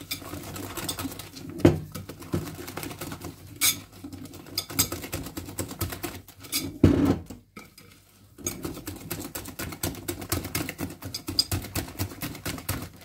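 Wire whisk stirring thick semolina batter in a glass bowl: rapid clicking and tapping of the wires against the glass, with a couple of louder knocks and a brief pause just past the middle.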